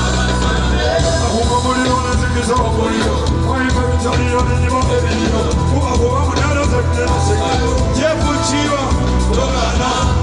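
Loud band music with a steady bass line and a wavering melody line above it, played through a PA sound system at a sound check.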